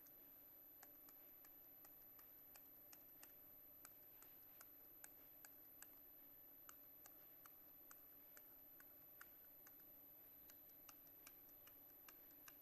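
Near silence with faint, irregular light clicks, about two or three a second, from a pen on a writing surface as a diagram is drawn.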